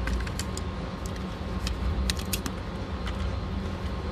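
Light metallic clicks and rattles of cartridges and a Canik pistol magazine being handled, over a steady low rumble.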